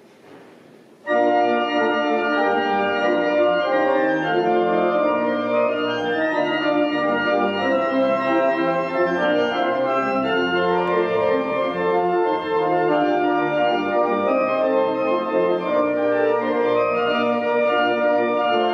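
Church organ playing the closing voluntary at the end of a service: full sustained chords that start suddenly about a second in, then run on steadily and loud.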